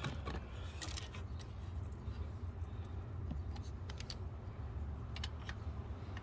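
Scattered light metallic clicks and clinks of hand tools and engine parts being handled, over a steady low hum.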